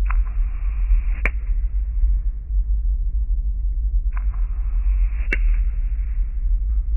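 Steady low rumble with two sharp clicks about four seconds apart, each at the end of a short hiss.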